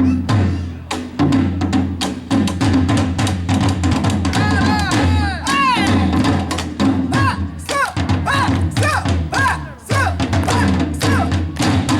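Korean traditional percussion ensemble drumming: booming buk drums with many sharp stick strikes in a fast, driving rhythm. From about four seconds in, a higher melodic line of notes that rise and fall rides over the drums.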